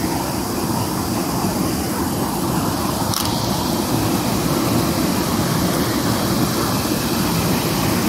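Fast mountain stream rushing over rocks: a steady, loud rush of white water.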